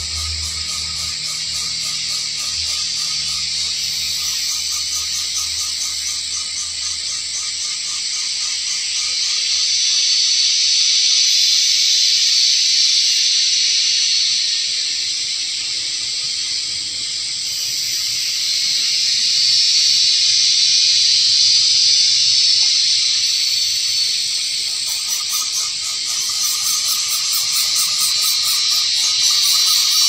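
Loud, high-pitched insect chorus with a fast pulsing trill, swelling louder and fading back in slow waves.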